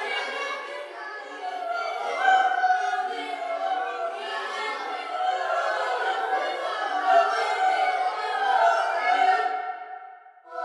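Children's choir, many voices overlapping in a dense, shifting mass of sound that dies away just before the end.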